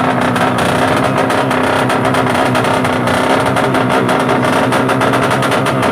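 Tuned 200cc four-stroke underbone drag bike engine held at steady high revs, loud and crackling, with no rise or fall in pitch.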